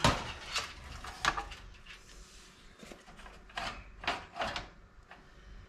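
Irregular knocks and clunks of a motherboard being set into a PC case and shifted about to line it up with the mounting holes, about half a dozen in all, the sharpest at the very start and about a second in.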